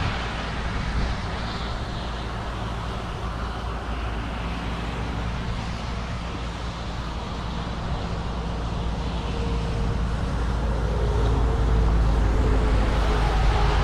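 Car driving: steady road and engine noise heard from inside the vehicle, growing louder toward the end.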